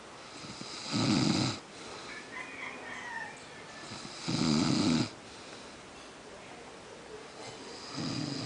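A man snoring in deep sleep: three loud rasping snores on the in-breath, about three and a half seconds apart, with quieter breathing between them. The third snore begins near the end.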